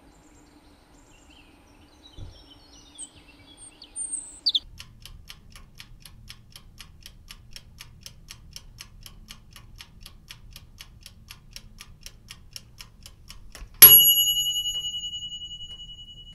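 Faint bird chirps, then a clock ticking steadily at about four ticks a second, cut off by one loud bell ding that rings on and fades away.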